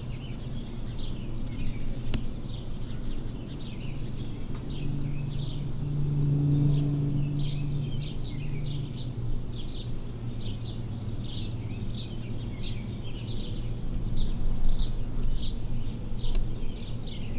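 Outdoor ambience of birds chirping over and over in short, high, downward-sliding notes, over a steady low hum that swells into a louder drone around the middle.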